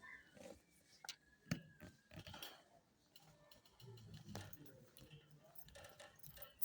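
Quiet shop background: a few sharp clicks and faint, distant voices.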